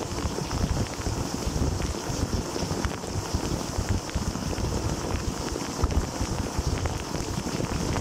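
Dishwasher wash jets spraying water across the racks and dishes, heard from inside the tub: a steady rushing, churning noise with a low rumble and scattered light ticks.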